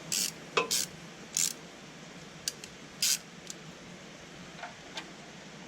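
Metal hand tools working at the oil drain plug under the car: about seven short metallic scrapes and clicks at irregular intervals, most of them in the first half.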